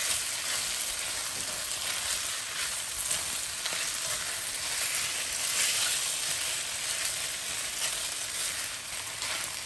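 Sliced chicken and onions sizzling steadily in hot oil in a non-stick wok as they are stir-fried, with soft scrapes of a spatula against the pan.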